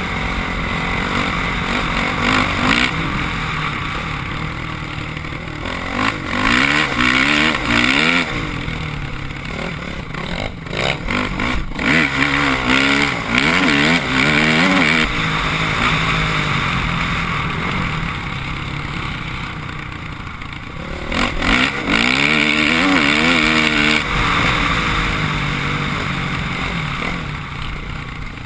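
Dirt bike engine under way, its revs rising in pitch several times as the throttle is opened and falling back between, with wind rushing over the helmet camera's microphone.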